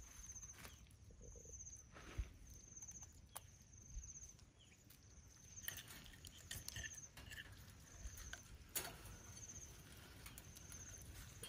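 Near silence with a few faint clicks and taps as snail shells and small crabs are set down on a wire grill rack over charcoal. A faint high chirp repeats in the background a little under once a second.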